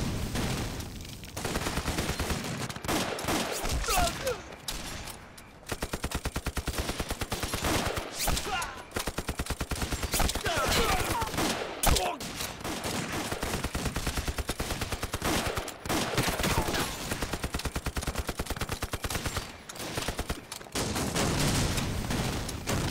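Battle sound effects: heavy gunfire with rapid machine-gun bursts, and explosions at the start and near the end.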